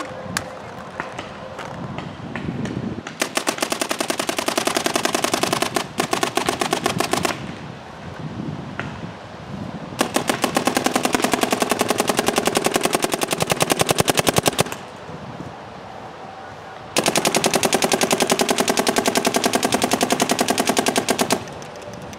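Dye M3+ electronic paintball marker firing rapid ramping strings of shots: four long strings, the longest about five seconds, with short pauses between, emptying the hopper.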